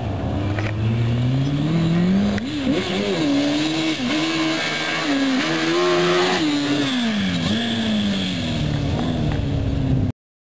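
Suzuki GSX-R1000 inline-four motorcycle engine in a dune buggy revving hard: its pitch climbs steadily over the first two seconds, then rises and falls repeatedly with the throttle. The sound cuts off abruptly near the end.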